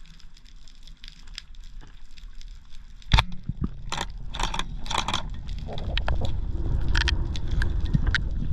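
Underwater speargun shot: a single sharp crack about three seconds in, against faint scattered clicking. A run of sharp clicks follows, then a low rumbling water noise that grows louder toward the end.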